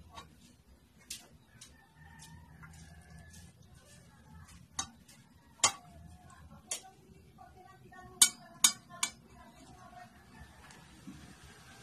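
Metal rotisserie spit clinking and tapping against an enamel pot while a marinated whole chicken is skewered on it: a scatter of sharp clicks, the loudest three in quick succession about eight seconds in.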